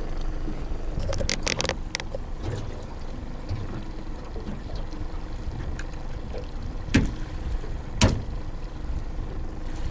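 Two sharp knocks about a second apart: a tiger squid being struck behind the head on the boat's gunwale to dispatch it. A few lighter handling clicks come earlier, over steady boat and water noise.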